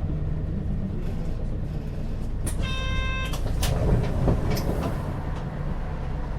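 A local bus running, heard from inside the cabin: a steady low engine and road rumble. About two and a half seconds in, a short electronic chime sounds for about half a second, with a few sharp clicks or rattles around it.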